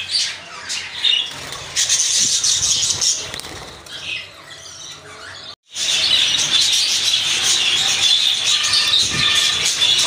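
Budgerigars chattering and squawking: scattered sharp squawks at first, then after a brief break about halfway, a large flock's continuous high-pitched chatter.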